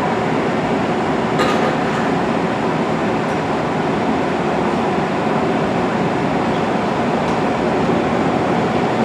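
A VRE commuter train standing at the station platform gives off a steady, loud running noise. There is a faint click about a second and a half in.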